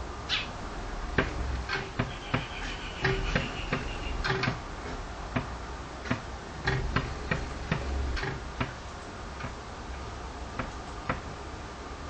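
A sparrow pecking at the window glass: a run of sharp, irregular taps, close together for the first eight seconds or so and fewer near the end.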